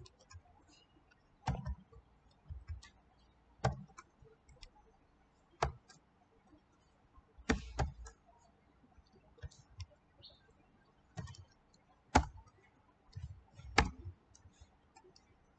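Irregular, separate sharp clicks from a computer keyboard and mouse as code is edited, about ten louder ones with faint ticks between.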